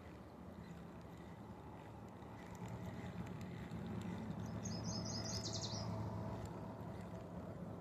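Low steady hum of a motorboat engine on the lake, swelling from a couple of seconds in and easing off near the end. About five seconds in, a songbird gives a short high song of quick repeated notes ending in a trill.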